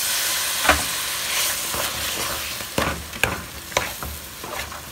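Besan halwa sizzling in ghee in a pan as the added water cooks off, while a spatula stirs and scrapes through it. The hiss is loudest in the first second or two, and the spatula knocks against the pan several times.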